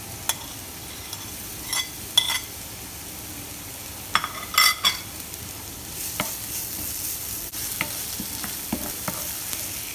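Minced garlic and sliced shallots sizzling in oil in a frying pan. A metal spoon clinks several times in the first five seconds as the shallots are pushed off a plate into the pan. About six seconds in the sizzle gets louder as a wooden spoon stirs the pan, with a few light knocks.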